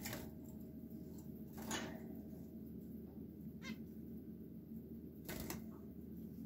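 Caged finches giving a few short calls, the loudest about a second and a half in, over a steady low hum.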